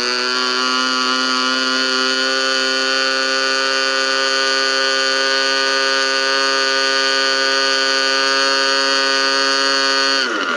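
GMS 120 two-stroke glow engine on an RC model plane running a 16x8 APC propeller at full throttle for a static thrust test. Its pitch climbs and settles about a second in, holds steady, then drops quickly near the end as the throttle is pulled back.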